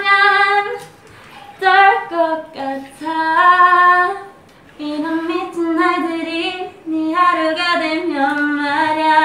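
A woman singing a melody unaccompanied, with long held notes stepping up and down and two short breaks for breath.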